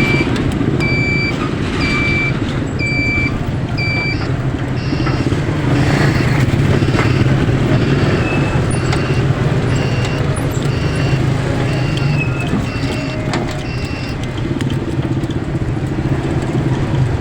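Road vehicle engine running steadily, with a series of short electronic beeps over it: about one a second for the first four seconds, then a different, quicker beeping pattern that stops about fourteen seconds in.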